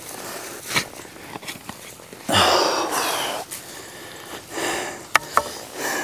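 Gloved hands digging and scraping through loose soil and dry leaf mulch to pull up sweet potatoes, with irregular rustling and a few sharp clicks near the end. A loud breath rushes into the lapel microphone about two seconds in.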